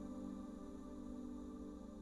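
Slow ambient new-age music: soft, sustained low synthesizer tones held steady.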